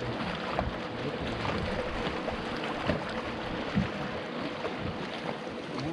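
Wind on the microphone and water lapping around a small fishing boat or kayak, with a few light knocks.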